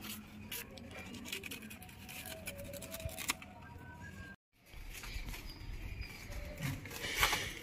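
Knife cutting banana leaves from the plant, with the large leaves rustling and crackling as they are handled; a louder rustle near the end.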